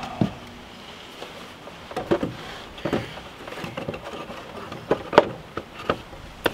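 Irregular wooden knocks and clunks as a piece of lumber blocking is handled and knocked into place between floor joists, a few knocks coming in quick pairs.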